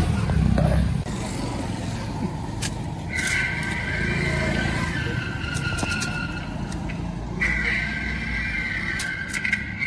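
Roadside traffic rumble with a few sharp clinks of steel bowls and plates. A steady high two-note tone comes in about three seconds in and breaks off briefly near the end.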